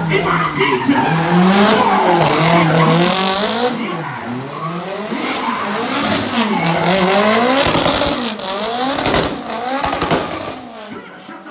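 Drift car at full throttle, its engine revving up and down over and over with tyres squealing as the car slides. It fades off near the end as the car moves away.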